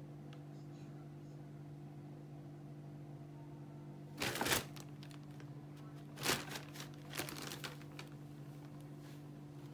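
Thin plastic shopping bags crinkling in three short bursts, about four, six and seven seconds in, as a tabby kitten pushes into them.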